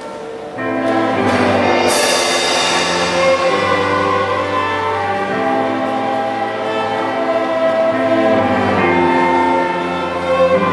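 Symphony orchestra playing sustained full chords over a low bass line. The whole ensemble comes in loudly about half a second in, and a bright crash rings out and fades about two seconds in.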